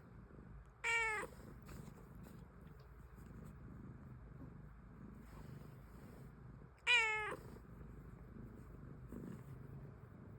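Domestic cat meowing twice, two short calls about six seconds apart, each dropping in pitch at the end.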